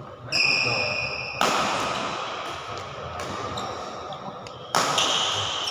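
Badminton rally in a sports hall: sharp racket strikes on the shuttlecock and shoes squeaking on the court floor, each sudden sound ringing on in the hall's echo. The three loudest come about a third of a second in, near a second and a half, and near the end.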